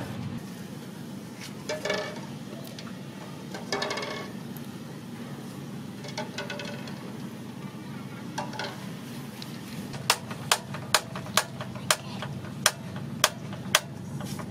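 Duck eggs set into an aluminium pot, each knocking against the metal with a short ringing clink, four or so spread over several seconds. From about ten seconds in comes a steady run of sharp clicks, about two a second, louder than the clinks.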